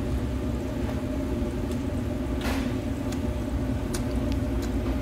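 Steady low mechanical hum and rumble of a restaurant extraction fan over a charcoal table grill, with a few faint clicks and a short hiss about two and a half seconds in.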